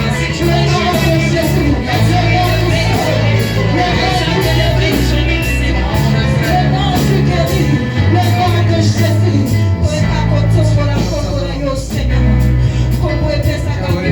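Church worship music from a live band: held bass notes changing every couple of seconds under a steady drum beat, with singing voices over it.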